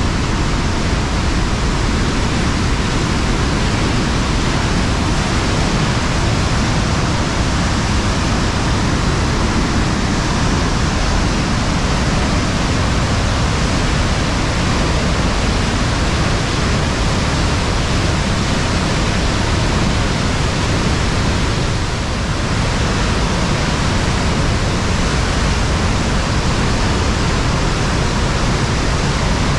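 Trümmelbach Falls, glacial meltwater pouring down its rock gorge: a loud, steady rush of falling water.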